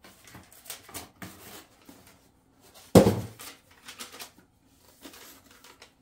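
Paper and cardboard rustling and handling sounds during unboxing, with one loud thump about three seconds in as the boxes are moved.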